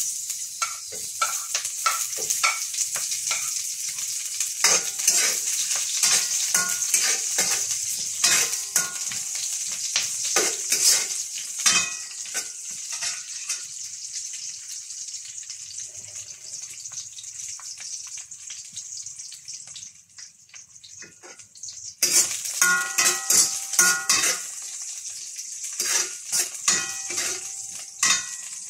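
Sliced onions sizzling in a hot stainless steel wok, with a spatula scraping and clattering against the pan as they are stirred. The sizzle and stirring die down in the middle and come back strongly about three-quarters of the way through.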